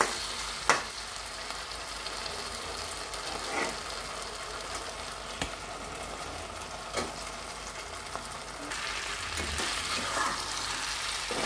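Sauce sizzling in a nonstick frying pan while a steel spatula stirs and scrapes through it, with a few sharp knocks of metal on the pan. Partway through, fried chicken pieces are tipped in from a steel bowl and stirred into the sauce.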